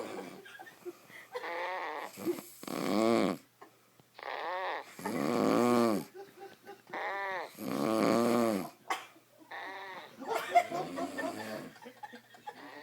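A man snoring loudly in his sleep: a run of rough, drawn-out snores, one every second or two.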